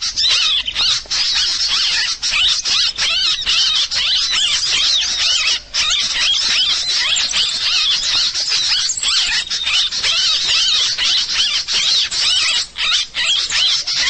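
Bird-catcher's lure call (suara pikat): a loud, dense chorus of rapid high chirps and squeaks from many small birds, played without a break to draw wild birds onto the bird-lime twigs.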